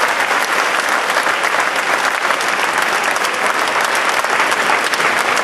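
A large audience applauding steadily, the dense clapping of many hands.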